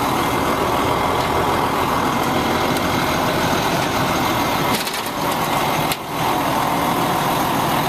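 International 4400 truck's DT466 diesel engine idling: a steady, loud rumble under a crackly hiss, with two brief dips in level near the end.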